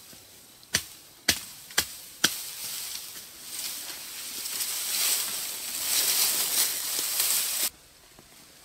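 Four sharp chops into a bamboo stalk, about half a second apart, then a long rustle and swish of bamboo leaves and stems as the cut stalk is dragged out of the thicket. The rustling stops suddenly near the end.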